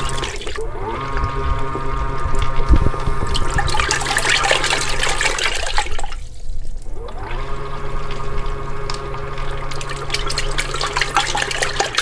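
Moyu portable folding washing machine running its rinse cycle: a small motor hums while the water and clothes slosh and splash in the tub. The motor stops briefly about half a second in and again around six seconds, then winds back up each time.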